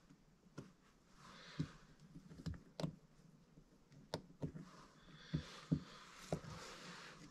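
Faint scattered clicks and taps of the aluminum fuel-pump plates and diaphragm being handled and fitted onto a snowmobile carburetor, about nine in all, with soft rustling between them.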